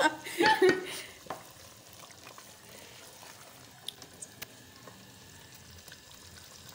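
Pot of kofta, pea and potato curry sizzling faintly as it cooks, with a few light clicks of a spoon against the pot.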